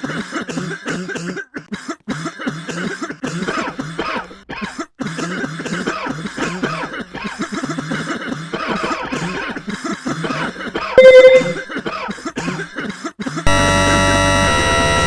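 Rapid, repeated human coughing, burst after burst. About two-thirds of the way through there is a short, very loud beep, and near the end the coughing gives way to a loud, harsh, distorted blast of noise and clashing tones.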